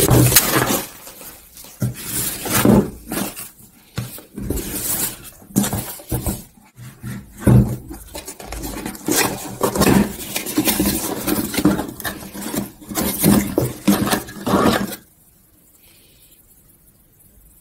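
Dishes and utensils clinking and knocking as they are handled, in a busy run of clatter that stops about fifteen seconds in, leaving quiet room tone.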